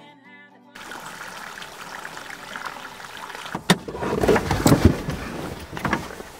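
Steady rushing hiss inside a car. About three and a half seconds in, louder rustling and several sharp knocks begin as the camera is handled and turned around.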